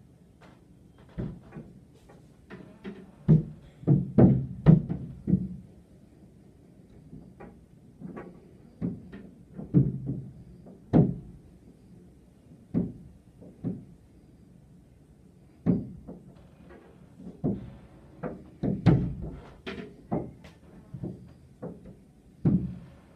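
Irregular dull knocks and thuds on a glass window pane, heard through the glass from inside, as rope-access window cleaners bump and brace against it with their boots, suction-cup handles and squeegees. The knocks come in quick clusters a few seconds in and again near the end, with quieter gaps between.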